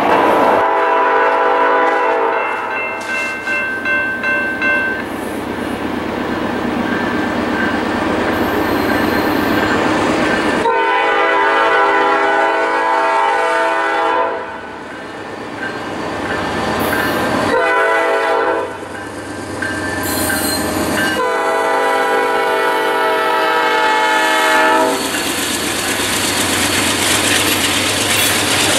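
Norfolk Southern freight locomotive's multi-chime air horn sounding the grade-crossing signal as the train approaches: long, long, short, long. Then the locomotive passes close by, with its engine and rolling wheels making a loud steady rush.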